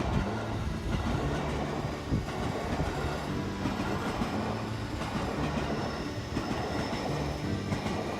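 A train passing on the line, running steadily throughout, with music underneath.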